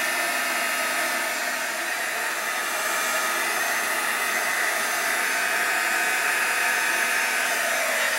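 Handheld heat gun running steadily, its fan blowing a constant rush of hot air with a faint whine, while it shrinks heat-shrink tubing over a wire connection.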